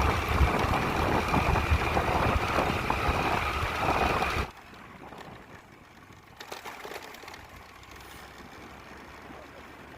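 Motor vehicle running, a loud rumbling noise that cuts off sharply about four and a half seconds in, leaving a faint hiss.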